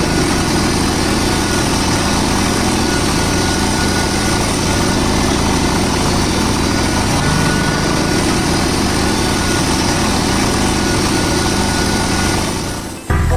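A small engine running steadily at a constant speed, fading out near the end.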